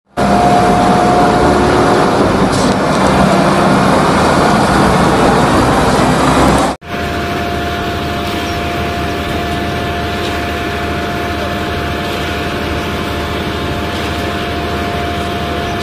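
Concrete mixer trucks running: heavy diesel truck noise with a steady whine. The sound cuts off sharply about seven seconds in, then picks up again a little quieter with the same whine as a second mixer truck discharges concrete down its chute.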